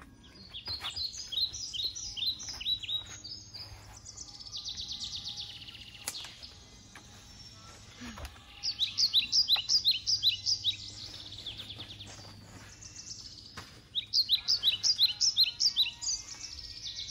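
A songbird singing three bursts of rapid, repeated high chirps, each a few seconds long.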